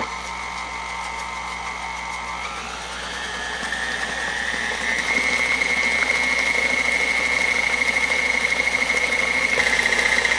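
KitchenAid stand mixer switched on, its motor beating a thick cheesecake batter with a rubber-edged flat beater. The motor whine steps up in pitch and loudness over the first few seconds as the speed is raised, then runs steady, dropping slightly in pitch and pulsing near the end.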